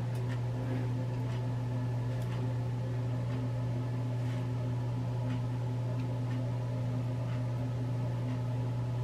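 Steady low hum of a bathroom exhaust fan, even and unchanging, with a few faint light clicks.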